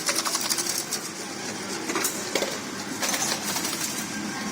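Incense stick counting and packing machine running, a steady mechanical hum with irregular clicks and clatter from its mechanism.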